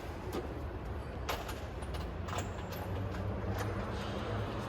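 Low steady background rumble with a few faint clicks and light knocks, typical of parts being handled during work on a vehicle.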